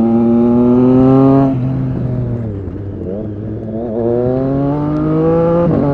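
Triumph Street Triple RS 765 inline three-cylinder engine through an SC-Project S1 exhaust, pulling hard with its pitch climbing. The pitch drops about a second and a half in, climbs again, and drops sharply near the end as the rider changes gear.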